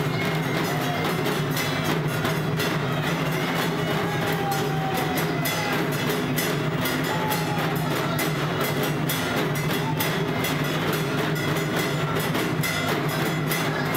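Dhak drums beaten in a fast, steady, unbroken rhythm: the temple drumming that accompanies a goat sacrifice at Kali puja.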